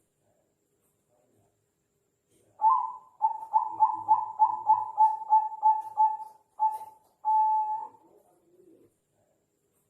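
Zebra dove (Bangkok perkutut) cooing. One song starts about two and a half seconds in: a quick run of short, pulsing coos, then a longer coo to close.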